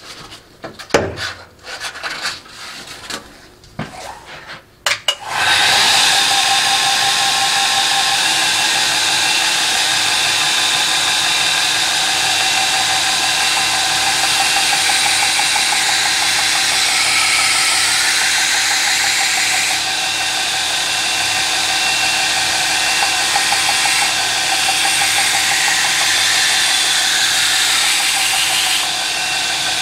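A few clicks and knocks, then about five seconds in a belt grinder starts and runs steadily with a knife blade held against its partially worn 400-grit belt, putting the finished edge on the blade.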